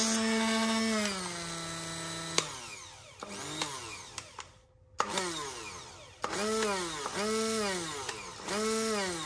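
Braun MultiQuick 9 hand blender's 1200 W motor running with a steady hum. It drops to a lower speed about a second in and winds down by about two and a half seconds. From about five seconds in, its pulse program revs it up and down repeatedly, each surge rising then falling in pitch, about once a second.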